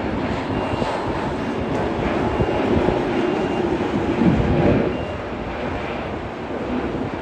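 Korean Air Airbus A380-800 taxiing, its four jet engines making a steady rumble that swells a little past the middle and eases about five seconds in.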